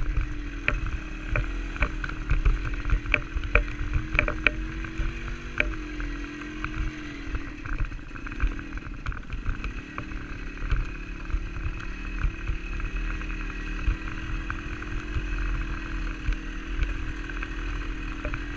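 Dirt bike engine running at low revs through deep mud, its pitch dipping and rising with the throttle a couple of times, with scattered sharp knocks as the bike jolts over the ruts and wind rumbling on the microphone.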